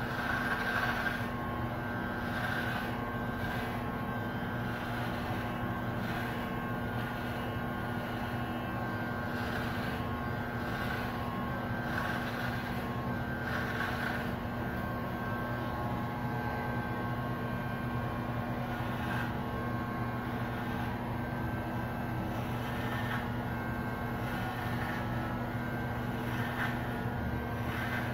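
Corded electric hair clippers running with a steady buzz, with brief brighter rasps several times as the blade moves through short hair.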